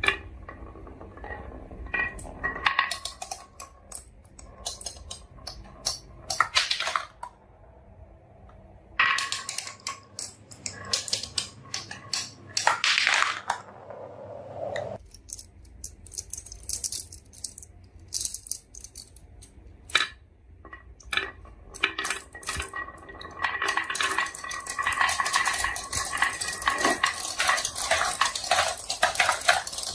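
Marbles rolling and clattering down a marble run, with many quick clicks and knocks in bursts. From about 23 seconds in, a dense, continuous rattle of many marbles running together.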